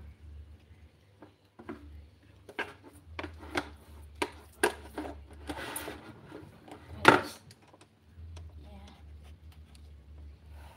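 Green plastic spatula scraping and tapping in a square metal baking pan as grated sweet-potato batter is spread and smoothed: a string of short knocks and scrapes, the loudest about seven seconds in, over a low steady hum.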